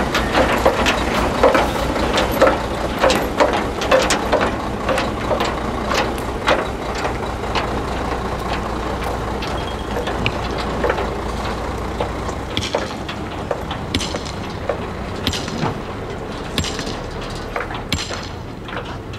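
Diesel engine of a skip-loader lorry towing a trailer as it pulls away, with many clanks and rattles of loose metal, thickest in the first half. The engine's low rumble drops away about two thirds of the way through.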